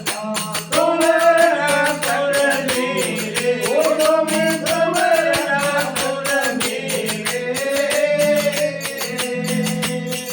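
Devotional bhajan music: a sung melodic line over a steady drone, with fast, even jingling hand percussion throughout.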